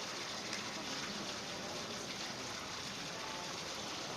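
Steady hissing background noise with a few faint ticks and a brief faint tone about three seconds in.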